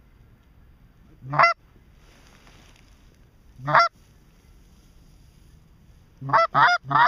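Goose honks: a single short honk, another a couple of seconds later, then three in quick succession near the end.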